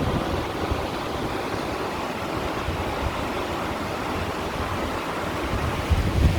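Sea water washing against shore stones in a continuous wash, with a low rumble that swells louder near the end.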